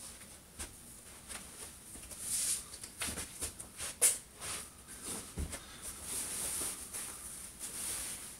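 Clothing rustling as a dress is pulled on and adjusted, with scattered small clicks and a sharper knock about four seconds in.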